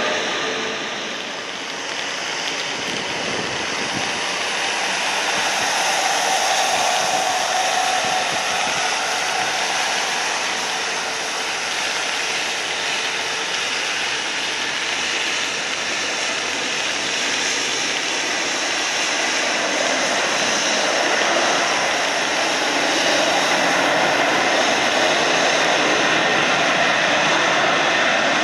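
Jet airliner engines running on the runway, a steady hissing roar that grows a little louder over the last several seconds. Part of it comes from an Airbus A321 rolling down a wet runway.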